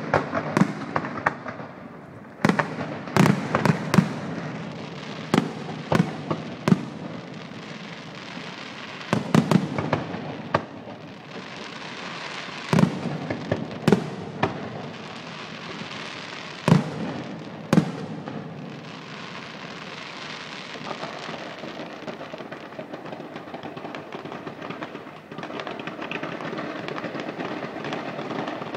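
Fireworks display, aerial shells bursting with sharp bangs every second or two for about the first eighteen seconds. After that the bangs thin out into a steady crackling hiss.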